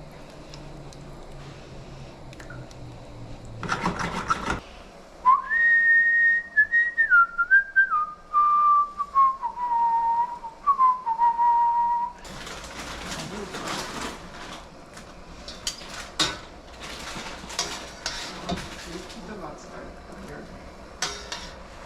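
A person whistling a slow tune that steps downward in pitch for about seven seconds, after a brief loud burst of noise. Then comes irregular clinking and clattering of kitchen utensils against pots and dishes.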